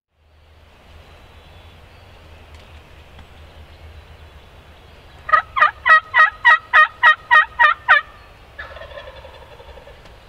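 Turkey yelping: a loud, evenly paced series of about eleven yelps lasting nearly three seconds, starting about halfway through, followed by a fainter, rougher turkey call near the end.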